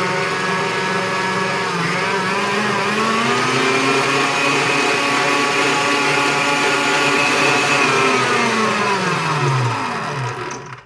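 Electric mixer whisking egg whites and sugar into meringue, its motor running steadily. It speeds up about two seconds in, then slows and winds down to a stop near the end.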